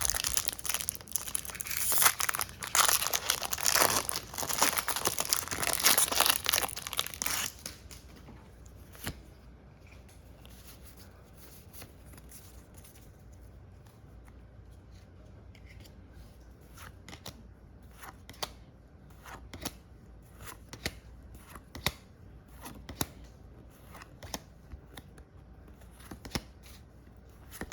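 Foil Pokémon card booster pack being torn open and crinkled for the first several seconds. After that it goes quieter, with scattered soft ticks and taps of trading cards being handled.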